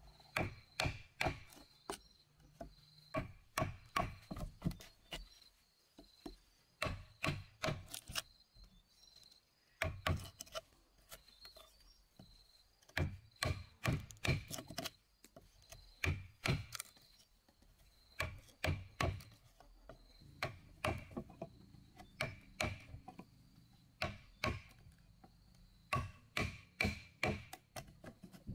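Steel chisel being driven into a wooden beam with repeated blows to cut a mortise: sharp wooden knocks in runs of about three to five a second, with short pauses between runs. A faint steady high tone runs underneath.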